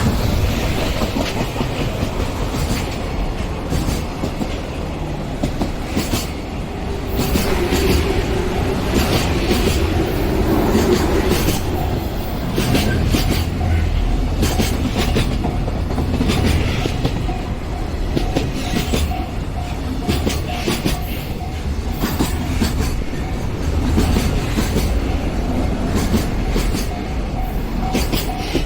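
A long train running past at a level crossing, its wheels clattering steadily over the rail joints for the whole time, which suggests a long EF210-hauled freight train. A level-crossing bell rings over it in the second half.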